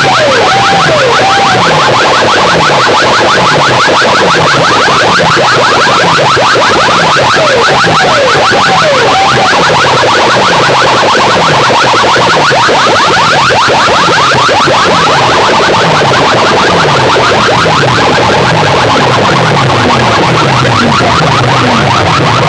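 DJ sound-box speaker stacks playing an electronic sound-check track at full volume, heavily distorted. Falling bass sweeps repeat more than once a second under a fast buzzing pulse, with a wavering siren-like glide near the start and again about eight seconds in.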